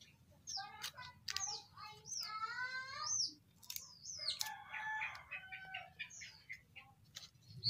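Birds chirping, with longer calls from a chicken about two seconds in and again around the middle.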